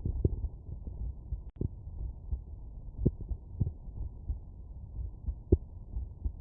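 A child's heartbeat heard through a stethoscope's diaphragm over the mitral area at rest: repeated short, dull beats over a steady low rumble, with a brief dropout about one and a half seconds in.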